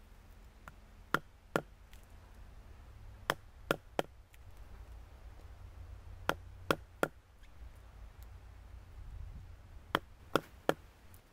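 A wooden baton striking the spine of a knife set against a fallen birch log, driving the blade through the bark. Sharp woody knocks come in four quick runs of two or three strikes, eleven in all.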